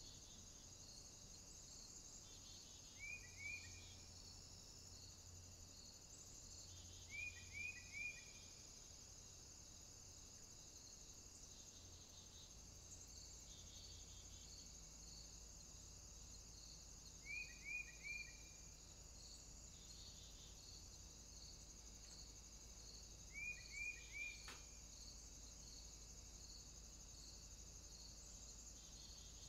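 Faint insect chirping: a steady high trill with a quick regular pulse, and short groups of two or three chirps returning every five or six seconds.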